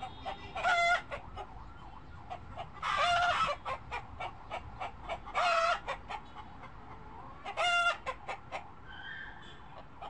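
Domestic fowl calling: a steady run of short clucks, with four louder, longer pitched calls spaced about two and a half seconds apart.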